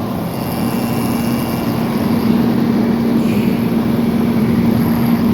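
Refrigeration vacuum pump running steadily, evacuating the repaired compressor circuit, with a strong even hum.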